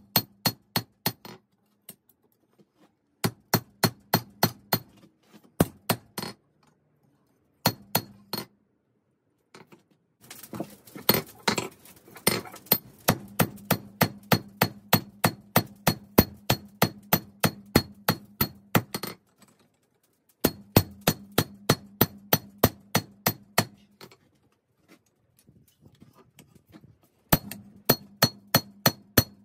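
Hammer striking 5160 spring steel on an anvil in runs of ringing blows, about three a second, with short pauses between the runs and a faint low hum under them.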